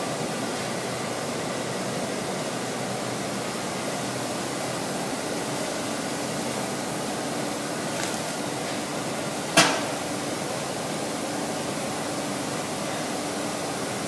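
Steady rushing noise of a glassblowing workshop's furnace burners. About two-thirds of the way through there is one sharp metal clank, the loudest sound, with a short ring.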